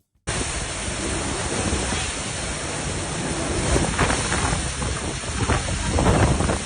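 Hurricane Ida's wind and rain blasting a phone microphone: a loud, continuous rushing noise that swells in gusts, starting abruptly about a quarter second in.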